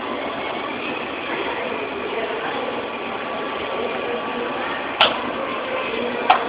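Battery-powered children's ride-on toy motorbike, its small electric motor whirring over a steady background hum. Two sharp knocks come near the end.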